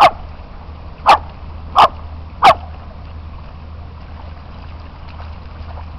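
Poodle barking four times, sharp and loud, at roughly even spacing in the first two and a half seconds.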